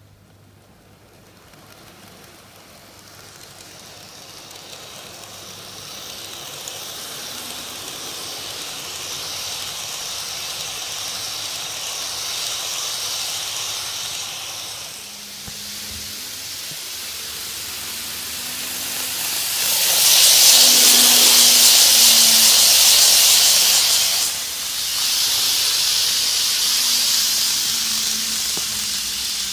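N gauge model train of a Tokyu 5050 series running on its track: a steady hissing whir of motor and wheels that grows gradually louder as the train comes closer, dips briefly just past halfway, and is loudest for a few seconds about two-thirds of the way through.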